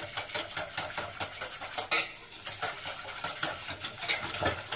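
Wire whisk beating a milk and cocoa mixture in a stainless-steel saucepan, its wires scraping and clinking against the metal in quick, even strokes of about four or five a second. There is one louder clink about two seconds in.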